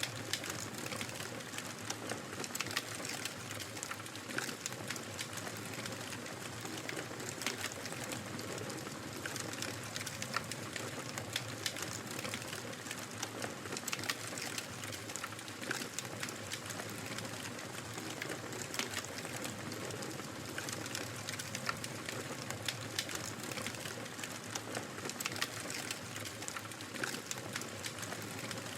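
Wood fire crackling: a steady hiss dotted with many small, irregular pops and snaps.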